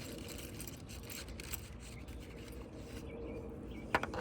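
Faint handling noises: light scraping and rubbing with scattered small clicks, and one sharper click near the end, as wires and parts are handled for a fuse-box bypass.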